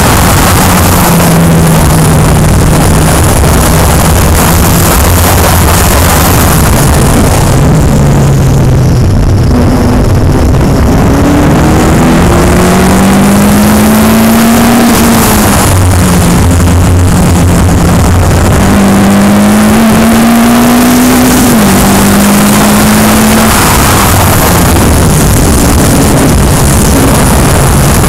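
An open-wheel track car's engine heard from onboard while lapping a circuit, under steady wind and road noise. The note eases off for a corner early on, then climbs under acceleration and drops suddenly on an upshift about halfway through. It climbs again and drops on another upshift about three-quarters of the way in.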